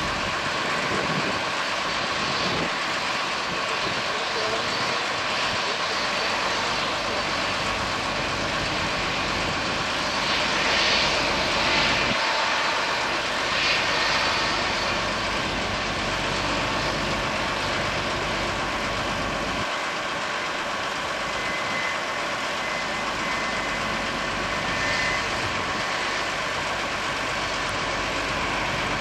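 Airbus A321-231 jet airliner's IAE V2500 turbofan engines running steadily, a continuous rush with a faint steady whine, swelling slightly partway through.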